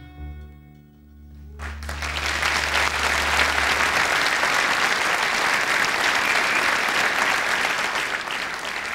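The last chord of an acoustic guitar song ringing out and fading, while a large theatre audience breaks into applause about two seconds in, building quickly to loud, steady clapping.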